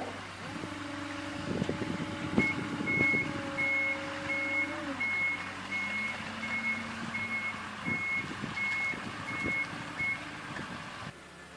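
Forklift reversing: its backup alarm beeps evenly, about three beeps every two seconds, over a steady motor whine that drops in pitch about halfway through, with a few clunks.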